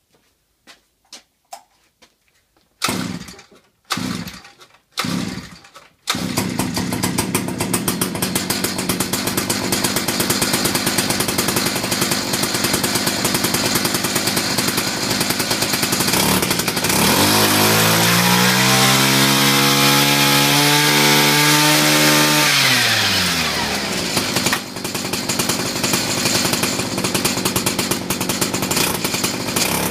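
49cc two-stroke engine of an X2 Super pocket bike being started: three short tries, then it catches about six seconds in and runs fast and steadily through its stock exhaust can, repacked as a silencer with a perforated stainless core wrapped in steel wool. About 17 seconds in its pitch rises, holds for a few seconds, then falls back to the steady run.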